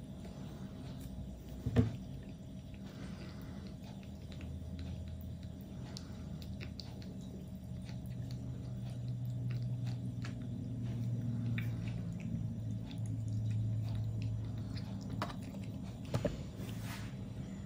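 Tiny kitten suckling milk from a feeding bottle's nipple: wet sucking and smacking clicks, with a low steady hum that swells in the middle. A single sharp knock about two seconds in.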